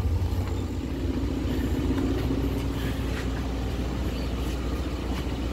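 Suzuki Carry 1000's four-cylinder engine idling steadily with a low, even hum, left running to warm up and dry off water in the engine bay after washing.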